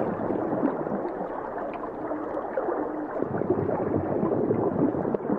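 Underwater gurgling and bubbling from a scuba diver's exhaled air, as a steady dense rumble.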